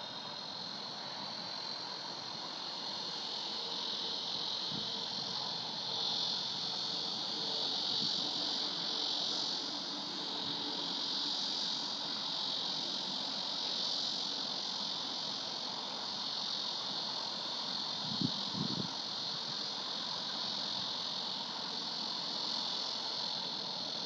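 Steady chorus of insects in the summer reeds, a continuous high chirring that doesn't let up. A few brief low thumps sound over it, the loudest about eighteen seconds in.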